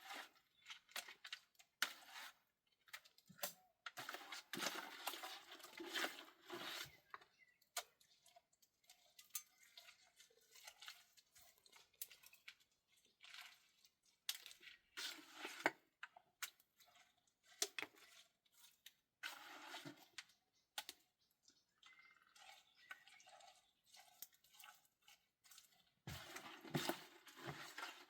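Irregular handling noise: rustling and crunching in stretches of a second or two, scattered with small clicks and knocks.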